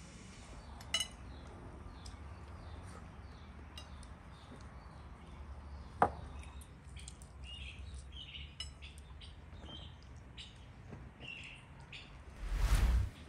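Cutlery and dishes clinking during a meal, with birds chirping in the background and a sharp clink about six seconds in. Near the end, a brief loud muffled noise.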